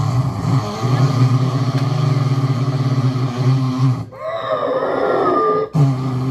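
A low, buzzing, growling vocal drone played through a loudspeaker. About four seconds in it breaks off abruptly into a second and a half of higher, wavering, gliding tones, then the drone comes back.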